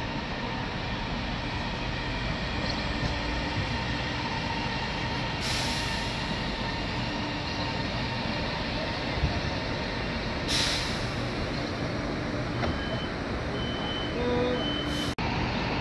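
CSR electric multiple unit at a station platform, its electrical equipment giving a steady hum, with two short hisses of compressed air about five and ten seconds in. A few short high beeps sound near the end.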